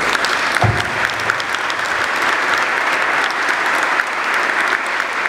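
An audience applauding steadily: many hands clapping at once, with a dull low thump about a second in.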